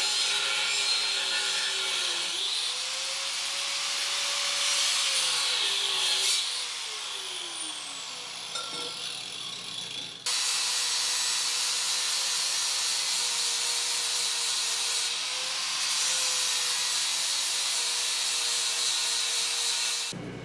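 Angle grinder cutting through a large steel pipe, its motor pitch sagging and recovering under load. About six seconds in it comes off the cut and winds down. A few seconds later it is suddenly running and cutting again, steady, until it stops abruptly near the end.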